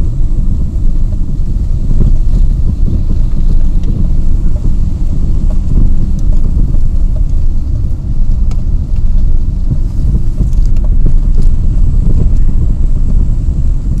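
Car driving along a narrow paved road, heard from inside: a loud, steady low rumble of engine and tyres.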